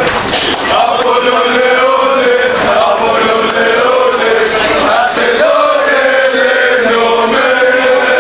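Crowd of football supporters chanting a song in unison, many male voices holding a steady, wavering tune without a break.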